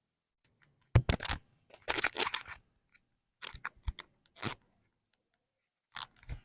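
A person turning onto their side on a chiropractic treatment table: rustling and creaking of body and clothing against the table in several short bursts, the loudest a sharp knock about a second in.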